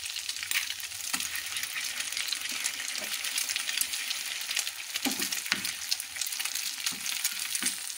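Eggs sizzling and crackling in hot oil in a frying pan as they are stirred and broken up with a wooden spatula, with a few short knocks of the spatula against the pan in the second half.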